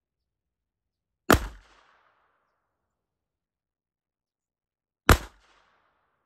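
Two shots from a Ruger Mark IV Hunter .22 LR pistol firing Aguila rounds, about four seconds apart, each a sharp crack followed by a short echo.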